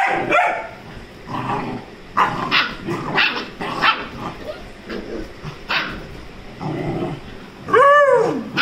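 Rajapalayam and Labrador puppies play-fighting, giving a string of short barks, with one loud bark that rises and falls in pitch near the end.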